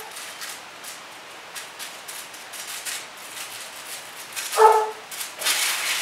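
A dog barks once, a short bark about three-quarters of the way through. Around it are faint crinkles of a plastic sheet being handled, and near the end the plastic crinkles louder as it is lifted off a folded corn-masa empanada.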